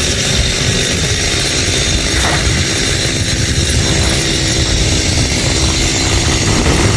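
Two-stroke chainsaw engine running steadily and loudly.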